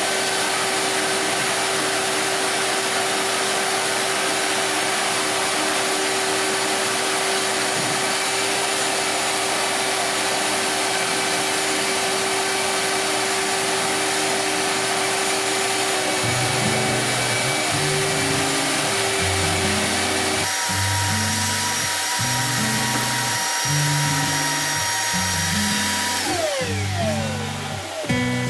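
A loud, steady machine whir with a constant hum, which cuts off abruptly about 20 seconds in. Background music with a plucked bass line comes in over it about 16 seconds in and then plays on alone.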